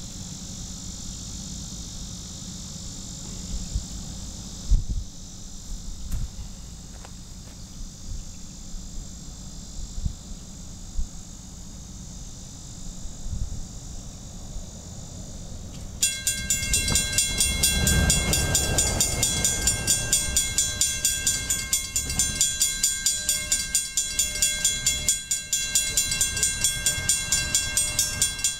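A railroad grade-crossing warning bell starts ringing about halfway through, with evenly spaced strikes a few times a second: the crossing signals have activated for an approaching train. Before it, a steady high insect buzz and gusts of wind on the microphone.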